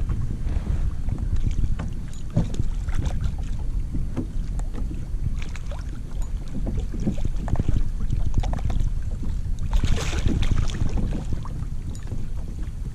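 Wind buffeting the microphone over water lapping at a plastic kayak hull, with scattered small knocks of gear against the boat. About ten seconds in comes a brief splash as a hooked redfish thrashes at the surface beside the kayak.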